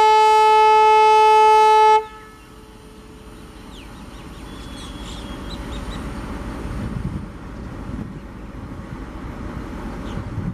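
ALCO WDG3A diesel locomotive sounding its air horn in one steady two-second blast that cuts off sharply. The low rumble of its 16-cylinder ALCO 251 diesel engine then grows steadily louder as the locomotive approaches.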